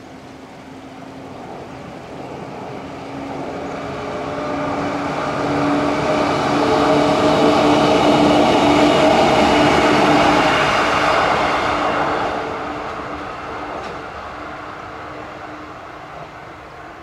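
JR West 115-series electric local train passing along the line: its running sound builds as it approaches, is loudest about eight to ten seconds in, and fades away by about twelve seconds.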